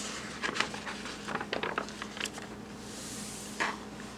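Picture book being handled, its paper pages being turned: a few light taps and rustles, with a brief swish about three and a half seconds in.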